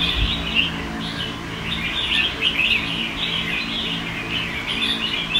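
Red-whiskered bulbuls chirping in quick, overlapping calls without a break, over a faint steady low hum.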